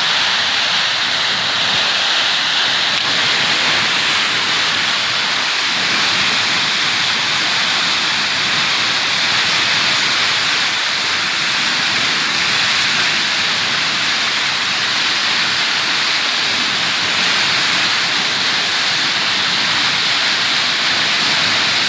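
Steady, unbroken rush of water pouring out of a power station's outflow sluice into the sea, churning white water close by.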